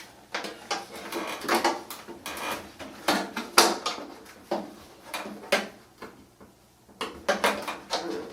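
Irregular clicks, knocks and light rattles of plastic and sheet-metal dryer parts being handled and worked by hand during a front bearing kit repair, with a quieter pause about six seconds in.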